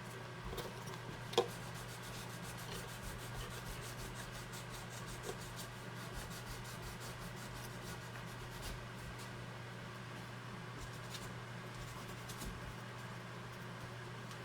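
Quiet handling of the mandolin and its tuner clamping jig: faint rubbing and a few small clicks, one sharper click about a second and a half in, over a steady low hum.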